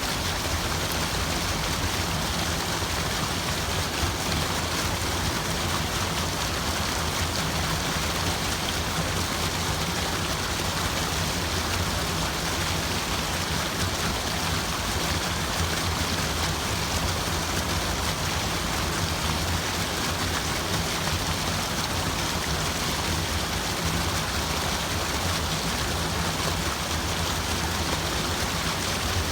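Steady rushing water, an even unbroken wash of sound with a low undertone.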